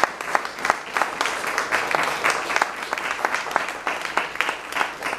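Audience applauding: many dense, overlapping hand claps.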